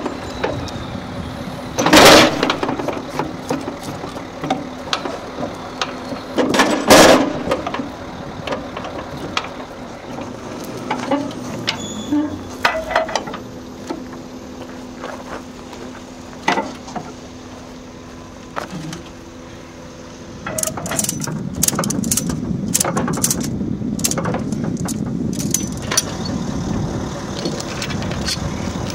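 An engine idles steadily under lashing work on a steel trailer deck. There are two loud metallic clanks, about two seconds in and again around seven seconds, with scattered clicks between. In the last third a ratchet strap is cranked tight, clicking repeatedly.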